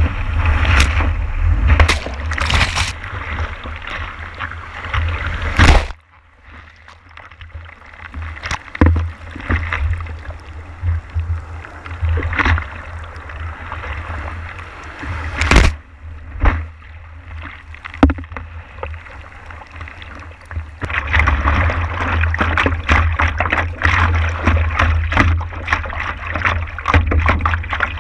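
Whitewater rushing and splashing over the nose of a stand-up paddleboard riding a wave, with wind buffeting the microphone in a low rumble. It drops away suddenly about six seconds in, leaving quieter water sounds with scattered splashes, and grows loud and busy again past the twenty-second mark.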